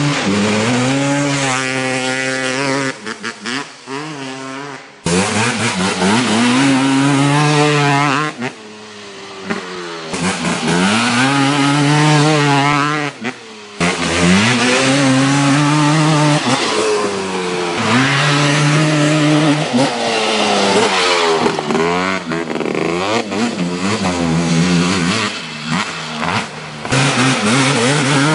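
Two-stroke sport quad engines revving hard, the pitch repeatedly climbing and dropping with the throttle. The sound is several separate recordings joined by abrupt cuts about 5, 10 and 14 seconds in.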